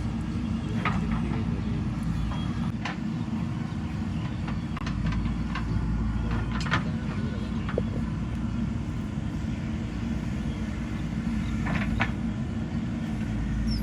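JCB 3DX Super backhoe loader's diesel engine running steadily while it digs, with a few sharp knocks scattered through it.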